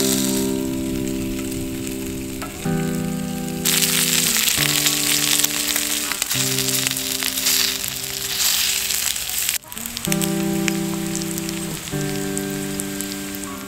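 Gentle background music of held chords that change every second or two, over a steady sizzling, crackling hiss. The hiss jumps louder a few seconds in and cuts out briefly about two-thirds of the way through.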